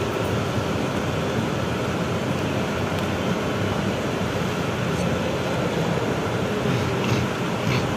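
Cabin noise of a BKM 32100D electric trolleybus under way: a steady running noise from the road and the vehicle.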